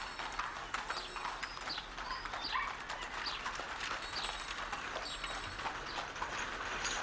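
Horses' hooves clip-clopping on a street, with small birds chirping repeatedly.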